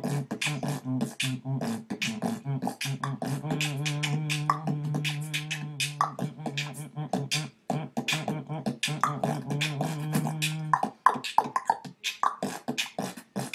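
Vocal beatboxing: a fast stream of mouth-made percussion with a held low voiced bass tone underneath. The bass tone drops out about eleven seconds in, leaving only the percussion.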